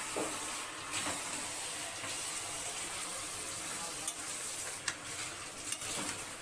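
Marinated goat meat and onions frying in hot oil in a metal kadai, sizzling steadily. A steel spatula stirs the meat, with a few short scrapes and knocks against the pan.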